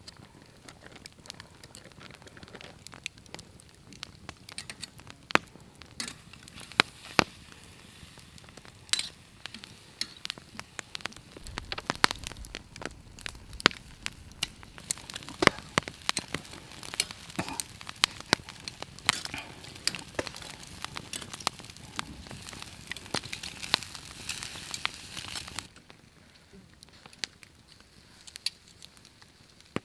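Chicken drumsticks sizzling on a wire grill rack over a wood campfire, with frequent sharp crackles and pops from the burning wood. The sizzling hiss cuts off suddenly near the end, leaving quieter crackling.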